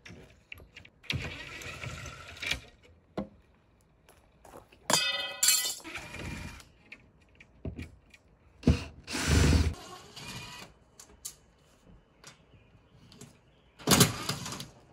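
DeWalt 20V cordless drill/driver running in several short bursts, backing screws out of an ambulance's metal roof rail and gutter, with quiet gaps between the runs.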